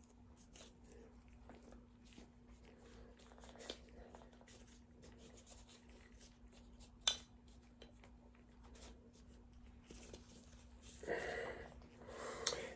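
Quiet handling sounds of gloved hands cleaning Glock 19 pistol parts: soft cloth rubbing and light clicks of metal and polymer, with one sharp click about seven seconds in. A faint steady hum runs underneath, and a short muffled sound comes near the end.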